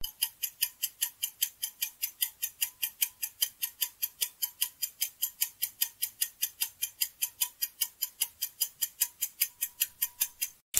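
Countdown-timer sound effect ticking like a clock, about four even ticks a second, while the quiz's guessing time runs out. The ticks stop near the end.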